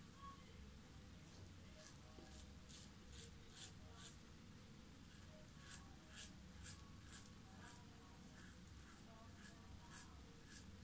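Muhle R89 double-edge safety razor scraping through lathered stubble: faint, short scratchy strokes, about two a second, starting a couple of seconds in with a brief pause midway.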